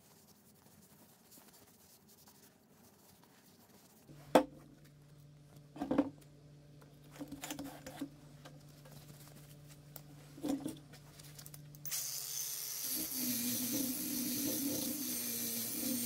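Faint rubbing, then a sharp click about four seconds in and a few knocks as a cordless angle grinder fitted with a sanding disc is handled. About twelve seconds in the grinder starts and runs steadily with a high whine, its disc against a metal oil filter canister.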